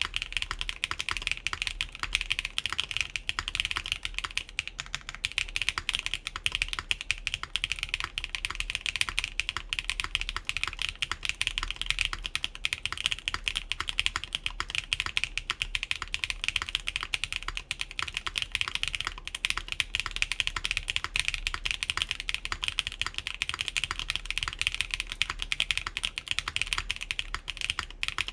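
Steady, continuous typing on a gasket-mounted mechanical keyboard with factory-lubed KeyGeek Blue Cheese v2 switches, a full aluminum plate and DSA keycaps. The keyboard is run without plate or case foam, set flat at 0 degrees. The keystrokes come thick and fast, with no pauses.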